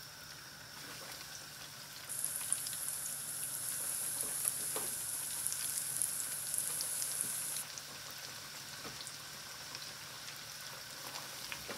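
Floured chicken wings deep-frying in a pot of hot oil: steady sizzling with scattered pops and crackles as more pieces are lowered in. A louder high hiss starts suddenly about two seconds in and cuts off a little past the middle.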